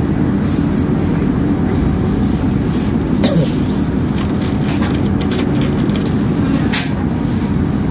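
Passenger train carriage rumbling steadily as the train pulls slowly out of the station, with a few sharp clicks and knocks.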